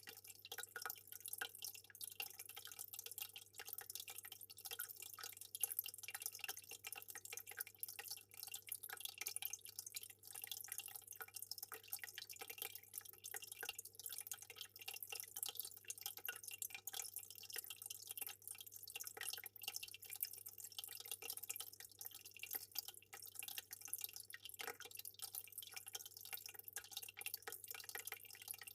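Aquarium water trickling and dripping steadily, a dense patter of small drops and splashes over a faint low hum.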